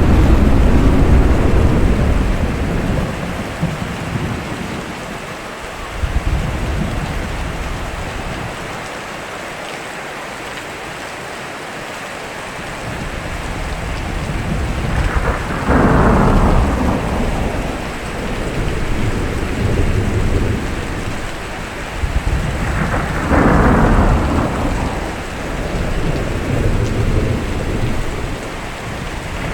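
Steady rain with thunder. A low rumble at the start, then two loud thunderclaps, about halfway and a little past three-quarters of the way through, each starting sharp and dying away into a rumble, and a third beginning at the very end.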